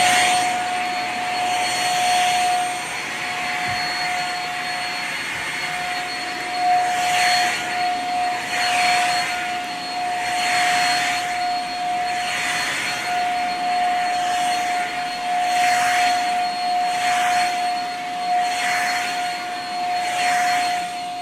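Shark Rocket corded stick vacuum running loud on its high-pile carpet setting: a steady high motor whine over rushing suction air. The air noise swells in repeated strokes as the vacuum is pushed back and forth over the carpet.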